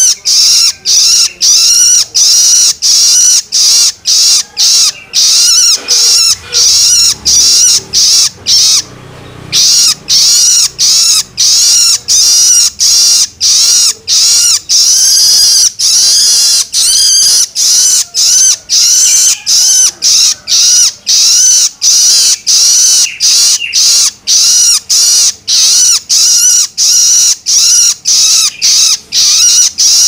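A juvenile long-tailed shrike (cendet) begging: a loud, high call repeated about twice a second without letup, with one short break about nine seconds in.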